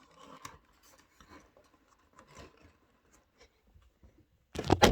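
Faint rubbing and rustling of small cardboard and plastic craft pieces being handled, then near the end a loud clattering bump: the phone that is filming is knocked or falls.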